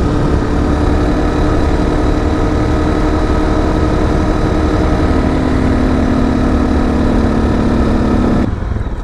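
Honda CRF250L's single-cylinder four-stroke engine with a modified exhaust running steadily at cruising speed, with wind rumble. The sound drops away abruptly near the end.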